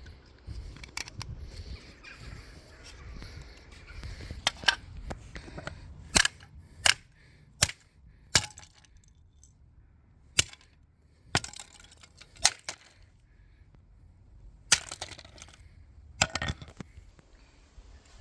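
Plastic casing of a Fire Angel SB1-R smoke alarm being broken apart: about a dozen sharp cracks and knocks at irregular intervals, a second or more apart.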